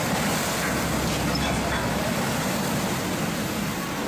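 Steady rush of water as the wave from a ship's sideways launch surges up the canal bank and across the road.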